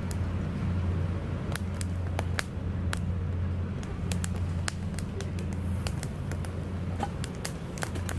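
Wood fire in a Picogrill fire pit crackling, with irregular sharp pops and snaps over a steady low rumble.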